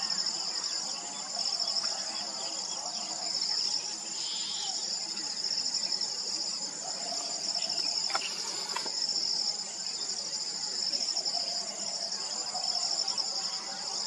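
A dense insect chorus: a steady, high-pitched pulsing trill throughout, with faint lower calls beneath it and a brief click about eight seconds in.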